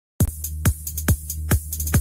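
Electronic dance music starting suddenly just after a moment of silence: a kick drum on every beat, a little over two beats a second, over a steady bass line.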